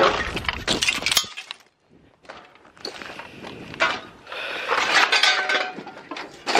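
Crunching and clinking of loose gravel and broken scrap debris underfoot, in uneven spells, with a short lull about a second and a half in.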